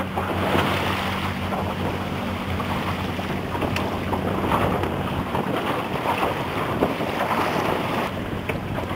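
Wind buffeting the microphone over the rush and slap of water on open sea, with a low steady hum for the first few seconds that fades out.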